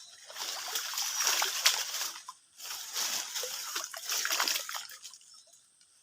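Water splashing and sloshing in three bursts over about five seconds: a hooked snakehead thrashing at the surface as it is landed.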